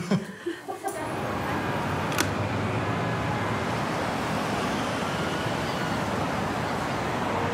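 Steady city road-traffic noise, an even wash of passing cars, setting in about a second in, with a single sharp click about two seconds in.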